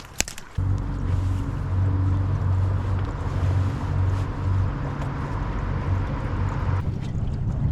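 Boat motor running steadily, cutting in abruptly about half a second in after a short click, with wind noise over it.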